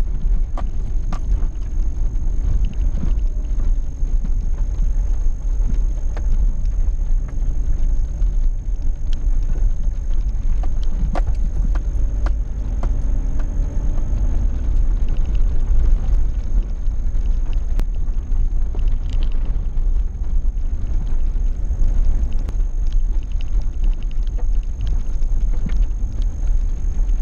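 Vehicle cabin noise while driving on an unpaved dirt track: a steady low rumble from the engine and tyres, with scattered knocks and rattles from the bumpy surface.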